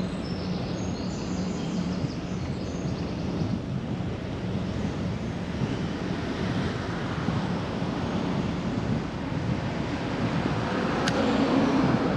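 Steady wind rush and road noise heard while riding a bicycle along a city street, with a motor vehicle passing, growing louder near the end. A single sharp click comes shortly before the end.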